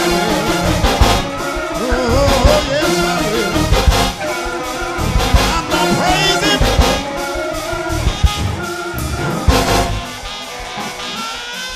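Gospel praise-break music from a live church band: fast, dense playing with drums and wavering pitched instruments, easing down in level near the end.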